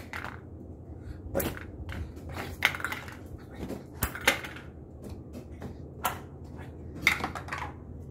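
Scattered knocks, taps and scuffs of a small ball and a plush toy being batted about on a tiled floor, with a sharp knock about four seconds in. A faint low hum runs underneath.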